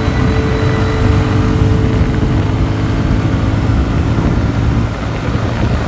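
Motorcycle engine running at a steady road speed, with wind rushing over the microphone as it rides.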